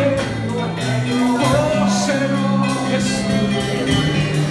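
A man singing a worship song into a microphone over music with a bass line in long held notes and steady percussion.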